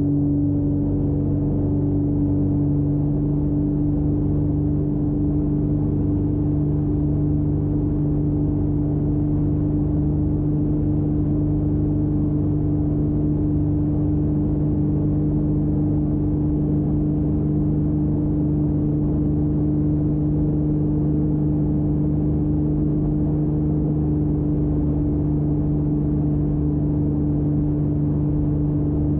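Corvair six-cylinder engine and propeller of a Zenith 601 HDS light-sport aircraft running at a steady speed: a constant drone that holds its pitch throughout.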